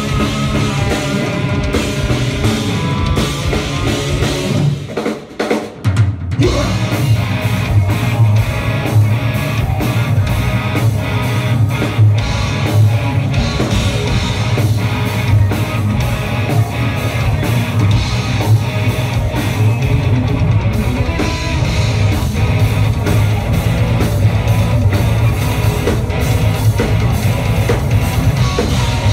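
Live heavy rock band playing loud, with electric guitar and drum kit. About five seconds in the music drops out for a moment, then the full band comes back in.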